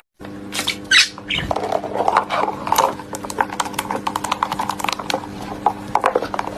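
A small animal's short high calls, then many rapid clicks and taps over a steady hum.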